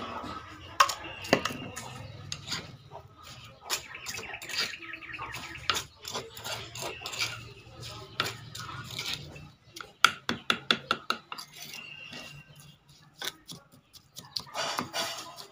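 Metal spoon clinking and scraping against a mortar as chili and garlic paste is stirred and pressed, with a quick run of taps about ten seconds in.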